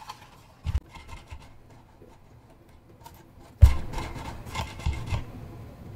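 Handling noises of an FMS FCX24 1/24-scale RC crawler truck on a silicone bench mat: a soft knock just under a second in, then a louder thump a little past halfway followed by rubbing and small clicks as the truck is pressed and moved.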